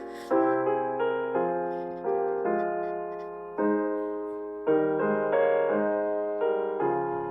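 Slow, gentle piano music: chords struck about once a second, each left to ring and fade before the next.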